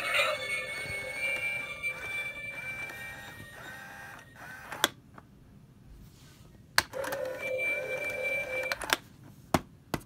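PAC animated eyeball doorbell's small speaker playing its spooky electronic sound effect, with ringing tones that fade out about five seconds in. Then come a few sharp clicks, and a short burst of the effect plays again between them.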